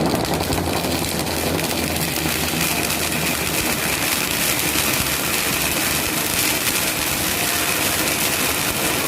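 Steady din of many fireworks and firecrackers going off at once: a dense rapid crackle over a low rumble, with no single burst standing out.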